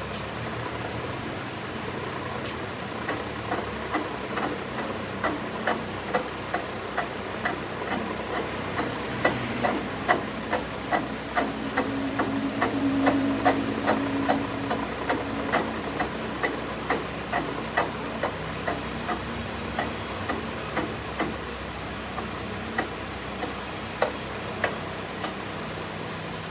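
Sharp metal taps at a fairly even pace of about two a second, over a steady machine hum in the workshop.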